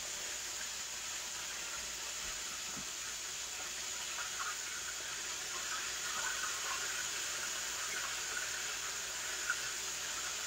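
Chicken wings frying in a pan of hot oil: a steady sizzling hiss, with a few faint crackles and a small pop near the end.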